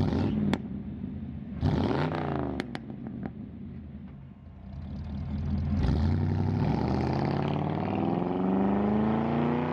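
Car engine running and revving: a short blip about two seconds in, then the pitch climbs steadily over the last few seconds as it accelerates. A few sharp clicks come in the first few seconds.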